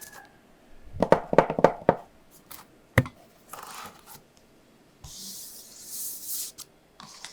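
Handling noise from a YouTube Silver Play Button plaque: a quick run of knocks and taps about a second in, a single sharp click near three seconds, then a second or so of hissing, rubbing noise.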